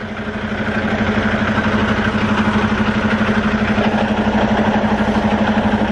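Semi truck's diesel engine running close by: a steady hum with a fast, even pulse, growing louder over the first second or so, then holding.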